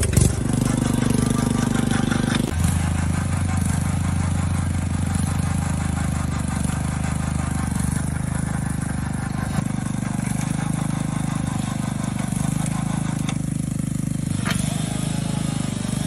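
Homemade auger well-drilling rig's machinery running with a steady mechanical drone, a deeper hum joining about two and a half seconds in and dropping out after about nine and a half seconds.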